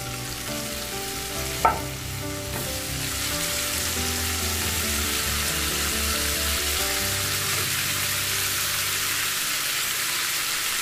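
Cooked shrimp tipped into a pan of hot melted butter and garlic, frying with a sizzle that grows louder and steadier after the first few seconds. There is one sharp knock about a second and a half in.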